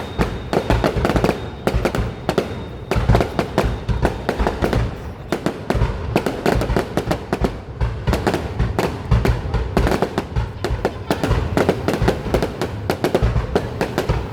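Fireworks going off in rapid succession: a dense, unbroken run of bangs and crackles over a low rumble.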